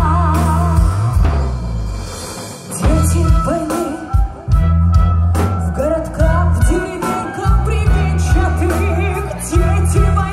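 Live military wind band with electric bass and drums playing a slow ballad, with a woman's voice singing with vibrato over it through the PA.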